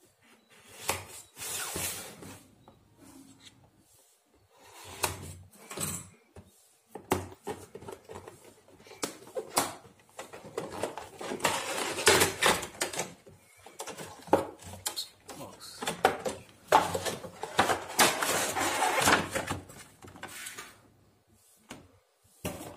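Cardboard headphone box being opened by hand: seals slit with a blade, then cardboard and a clear plastic tray rustling and scraping as the packaging is slid out, in irregular bursts with a few sharp clicks and the longest, loudest scraping about halfway through and again near three quarters.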